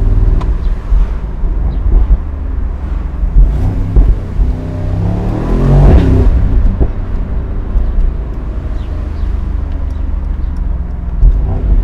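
Mercedes-AMG SL 63's 4.0-litre twin-turbo V8 running under way, rising in pitch as the car accelerates about five seconds in, then easing off again.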